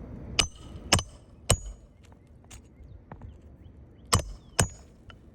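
Hammer driving a roofing nail into asphalt shingles: three sharp strikes about half a second apart, then two more around four seconds in, each with a short metallic ring.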